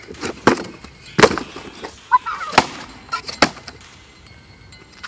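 A cardboard box being stomped and crushed underfoot: a run of about six sharp thuds and crunches over the first three and a half seconds, the loudest a little over a second in.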